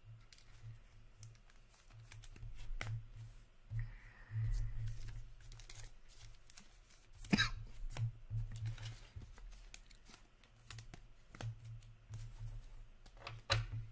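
Trading cards being handled: a card in a plastic sleeve is shifted between the fingers and cards are set down, giving soft rustles and scattered clicks, three of them sharper, over a low steady hum.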